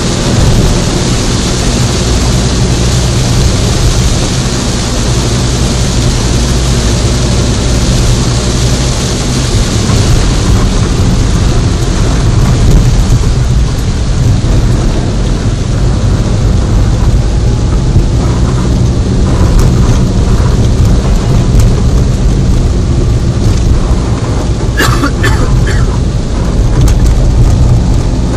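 Heavy rain pelting a car's roof and windshield, heard from inside the cabin while driving, over a steady low rumble of engine and road noise. A few short sharp clicks near the end.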